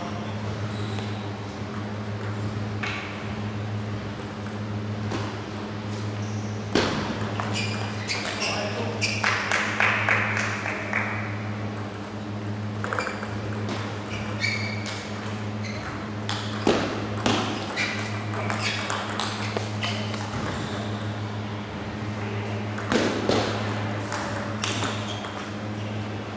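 Sharp clicks of a table tennis ball striking bats and the table, coming in three short clusters several seconds apart, over a steady low hum.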